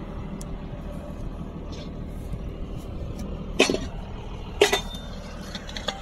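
Two sharp metallic clanks about a second apart, a little past halfway, from the metal couplings of lay-flat umbilical slurry pipe being handled, over a steady low rumble.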